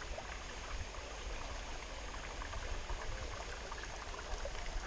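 Steady rush of a small stream and waterfall, water running over rocks.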